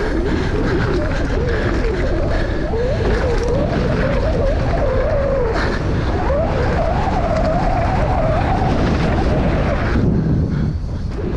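Downhill mountain bike ridden fast down a dirt trail: a steady rush of tyre and wind noise with constant rattling, and a whine that wavers up and down in pitch. It eases off briefly near the end.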